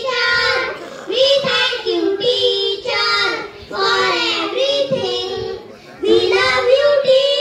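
A group of young children singing together into microphones, in sung phrases about a second long with short breaks between them.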